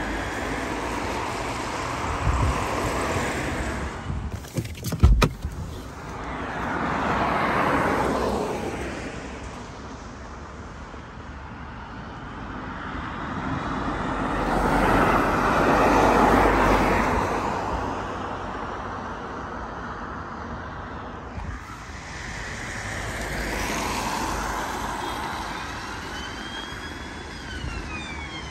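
Road traffic passing: vehicles go by one after another, each swelling and fading about four times over, with a brief sharp knock about five seconds in.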